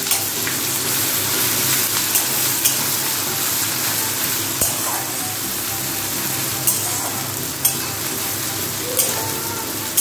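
Grated ginger, whole cumin and dried red chillies sizzling steadily in hot mustard oil in a steel kadai, stirred with a metal spatula that scrapes and clicks against the pan several times.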